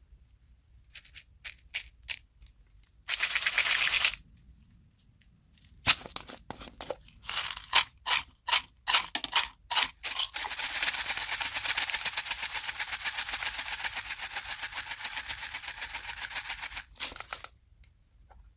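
Slime being pressed and squeezed by hand, giving sharp wet pops and clicks, a short burst of dense crackling about three seconds in, and then a long fast, even run of popping, several pops a second.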